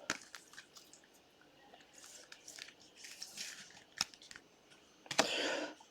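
Trading cards and their packaging being handled: faint rustling and a few light clicks, with a brief louder swish near the end.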